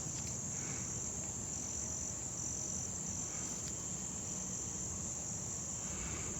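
Night chorus of crickets: a steady, continuous high-pitched trill that does not change.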